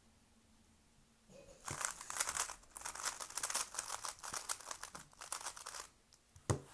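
A 3x3 speed cube being turned rapidly, its plastic layers clicking and rattling in a dense run for about four and a half seconds, then one sharp click near the end.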